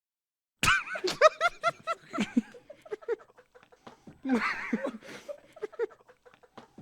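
Laughter sound effect: after a brief silence, a burst of quick, high-pitched 'ha-ha' laughing starts about half a second in. It carries on in uneven fits and gasps.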